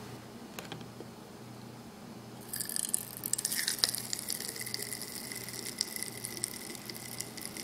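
Pop Rocks candy popping in water in a glass test tube: a dense, rapid crackle of tiny pops that starts about two and a half seconds in, after only a few scattered clicks.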